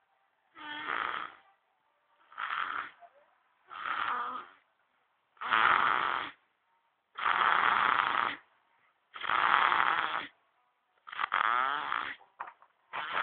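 A baby snoring: about seven snores, one every one and a half to two seconds, the first few quieter and the later ones louder. The last snore, near the end, carries a wavering pitched tone.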